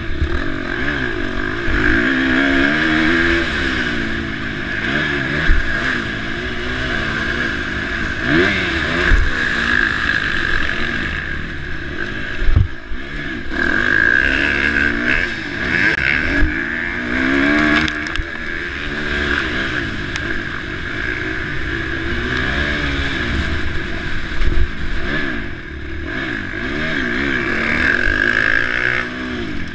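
KTM SX-F 350 motocross bike's four-stroke single-cylinder engine revving up and down again and again as it is ridden hard, with a few sharp knocks, the strongest about twelve seconds in.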